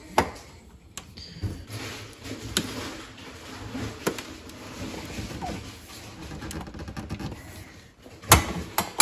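Scattered clicks and knocks of parts being handled and fitted on a De'Longhi espresso machine, the loudest near the end, over a faint low steady hum.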